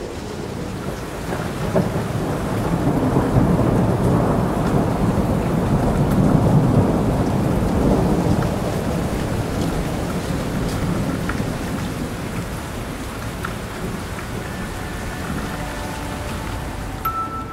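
Thunderstorm: steady rain with a long rolling rumble of thunder that swells a few seconds in and slowly dies away. A few soft musical notes come in near the end.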